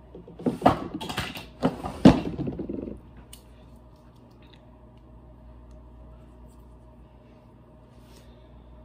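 Handling noise as small makeup items are picked up and moved about: rustling and several sharp knocks for about three seconds. After that only a faint steady hum with an occasional tiny click.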